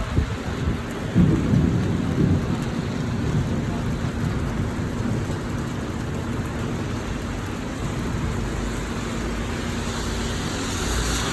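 Steady rain falling, with a low rumble of thunder about a second in that settles back into the rain over the next few seconds.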